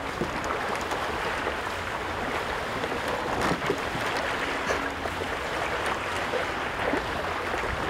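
Steady wash of water and wind at the water's edge, with a few faint distant shouts.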